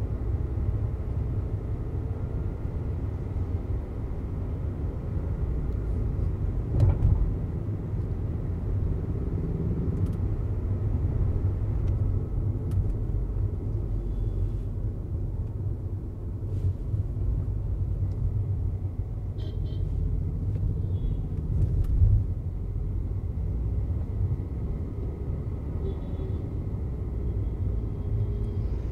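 In-cabin driving noise of a Volkswagen Vento TSI on a city street: a steady low rumble of engine and tyres, with two brief louder thumps, one about a quarter of the way through and one about three-quarters through.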